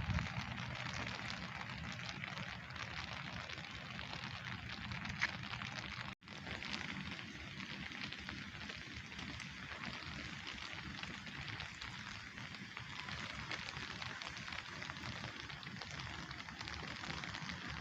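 Steady rain falling, with many individual drops ticking on surfaces over a low rumble. The sound cuts out completely for a moment about six seconds in, then returns.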